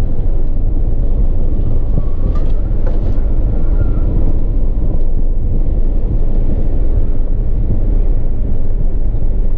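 Car engine running at speed with road and wind noise, heard from inside the car, loud and steady.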